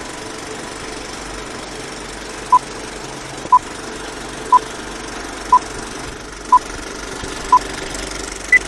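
Old-film countdown leader sound effect: a steady projector rattle and crackle with six short beeps one second apart, then a single higher beep.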